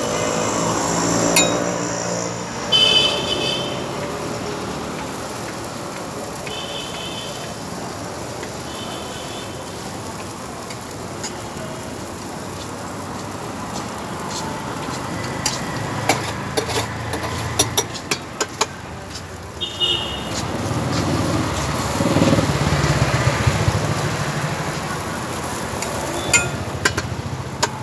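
Metal spatula scraping and clinking on a hot dosa griddle as masala is spread over the dosa, with a run of sharp clinks in the second half. Underneath is a steady background of street traffic.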